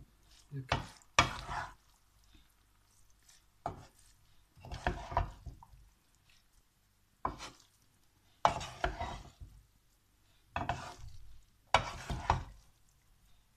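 Wooden spoon stirring and tossing pasta in a non-stick pan: about eight strokes, each a knock or scrape of the spoon on the pan followed by a short rustle of saucy pasta, every second or two.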